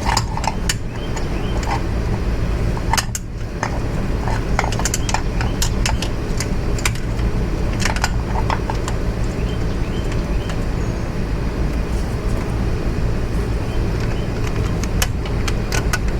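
Hand tools and a socket clinking and knocking against metal motorcycle parts in irregular, scattered clicks while fasteners are worked loose, over a steady low hum.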